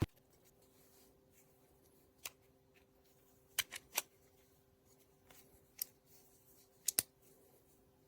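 Scattered light, sharp clicks and taps, about seven in all, several in quick pairs, over a faint steady hum.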